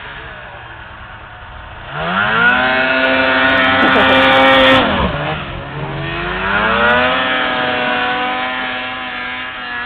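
Ski-Doo MXZ 600 snowmobile engine revving up hard about two seconds in and held at high revs, dropping off sharply near the middle, then revving back up and holding before easing off near the end.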